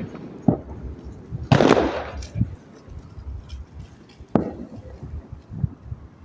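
Fireworks going off: a loud bang with a short rumbling tail about a second and a half in, then a sharp crack about four seconds later, with a few smaller pops between.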